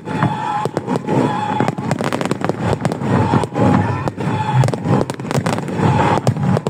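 Fireworks going off: many bangs and crackles in quick succession, with a wavering whistle-like tone running under them.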